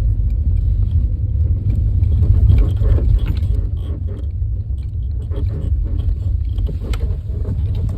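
Lada Vesta driving slowly, a loud, steady low rumble of engine and road noise that starts abruptly.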